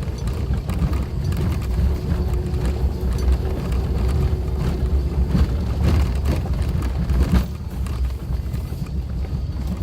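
Suzuki Jimny driving over a rough forest track: a steady low engine and road drone with frequent short knocks and rattles from the vehicle on the uneven surface.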